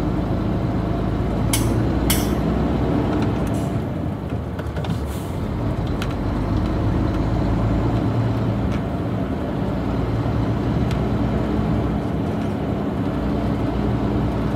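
Heavy truck's diesel engine pulling steadily on the road, heard from the cab, with two short sharp hisses about two seconds in.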